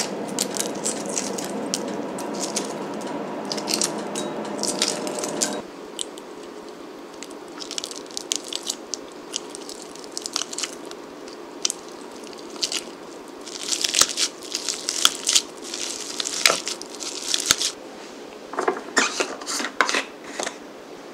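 Hard-boiled egg shells crackling as they are peeled, behind a low steady hum that stops about five and a half seconds in. Then a metal potato masher pressing cold boiled eggs against a glass bowl in several bursts of clicks and squishes; the eggs are fridge-cold and mash poorly.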